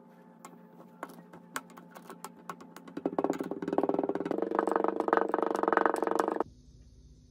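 Kinetic sand crunching and crackling as a clear cylinder presses it down into a glass. It starts with sparse faint crackles, then turns into a loud, dense, fast crackle about three seconds in, which stops abruptly near the end.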